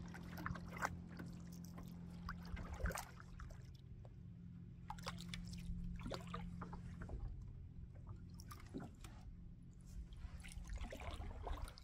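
A distant motorboat engine drones steadily on the lake, as one low even hum. Scattered small crackles and pops sound over it.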